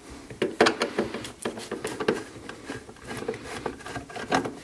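A screwdriver turning a screw out of the plastic top shroud inside a fridge freezer's freezer compartment: a run of small irregular clicks, ticks and scrapes.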